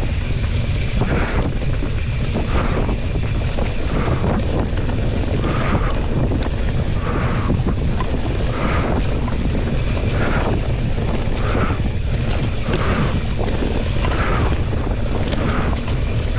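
Wind rushing over the microphone of a mountain bike descending a dirt trail, over a steady rumble of the tyres and frame on rough ground. Short, higher rasps recur every second or two.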